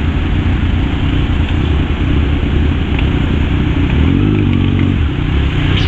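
Kawasaki Z1000's inline-four engine running under way in traffic, over a steady rushing noise. A clearer engine note with overtones stands out about four seconds in.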